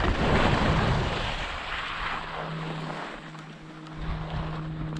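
Skis sliding over packed groomed snow with wind rushing over the microphone. It is loud at first and dies down over the first few seconds as the skier slows. A faint steady low hum comes in about halfway through.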